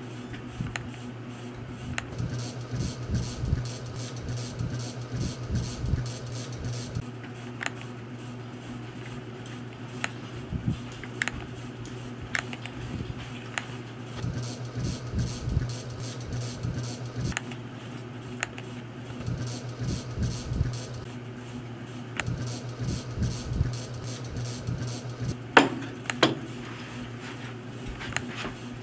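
Scattered single computer-mouse clicks over a steady low hum, with soft low thumps now and then and one louder click-and-knock near the end.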